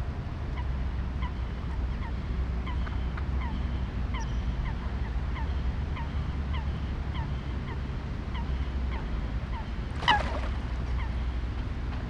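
City park ambience: a bird calls over and over in short, falling notes, about two or three a second, over a steady low rumble. One louder, harsher call comes about ten seconds in.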